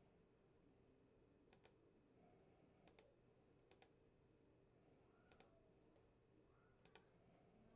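Faint paired clicks from a computer keyboard, five times about a second and a half apart, over near-silent room tone.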